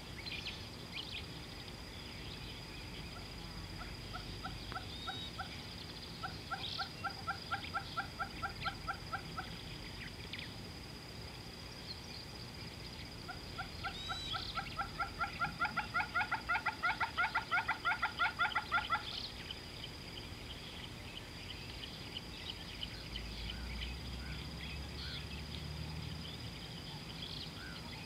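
A bird calling in two runs of rapid, evenly repeated notes, about five a second. The first run lasts about five seconds and the second, louder one about six seconds, starting a few seconds later. A steady, high insect buzz runs underneath.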